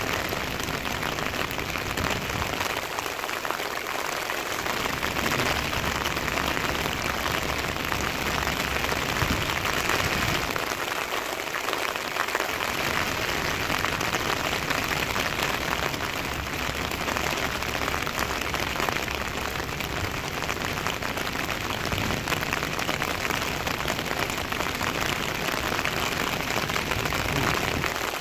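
Heavy rain falling on a road and pavement, a steady hiss.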